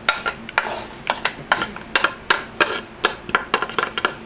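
Wooden spatula scraping and knocking against a plastic mixing bowl as diced celery is pushed in onto chopped imitation crab meat: a quick, irregular run of clicks and scrapes.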